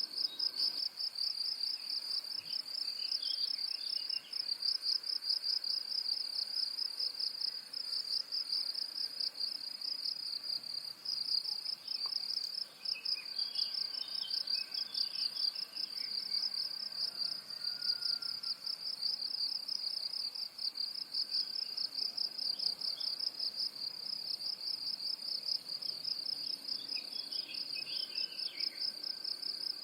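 A steady, high, rapidly pulsing insect trill that never lets up, with faint bird chirps a few times: a couple of seconds in, around the middle and near the end.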